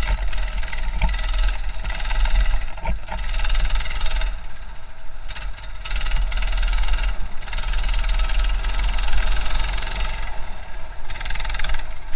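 A 200cc four-stroke go-kart engine running under way, its sound wavering as the throttle changes and easing off briefly twice, about four and ten seconds in. It is heard muffled through an action camera's waterproof housing, over a heavy low rumble.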